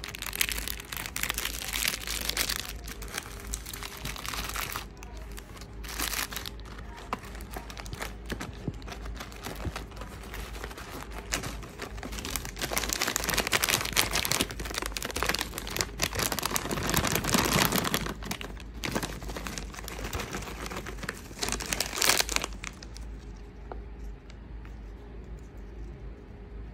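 Plastic snack wrappers crinkling and rustling as hands open them and dig inside, in bursts. The longest and loudest crinkling stretch comes in the second half, and it dies down near the end.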